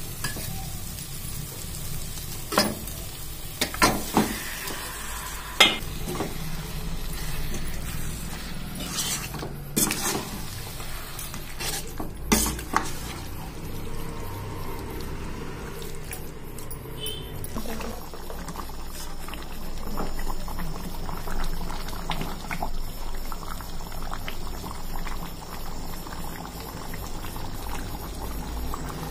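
Metal spoon stirring chicken in a steel pot, with several sharp clinks of spoon against pot in the first half, over a steady sizzle of the chicken cooking.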